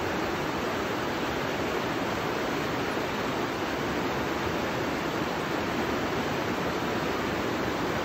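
Steady rushing of fast river rapids, white water running over and around boulders.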